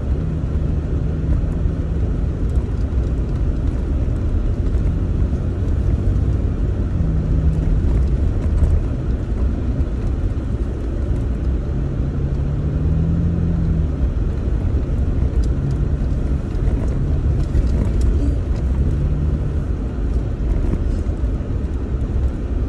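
Vehicle driving slowly on a dirt trail, heard from inside the cab: a steady low rumble of engine and tyres, with the engine note stepping up and down a little as the throttle changes.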